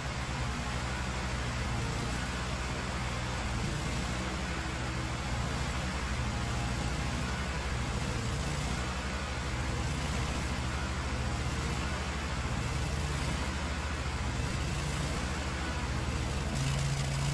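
An engine on sawmill machinery runs steadily at a constant speed, as a low even drone.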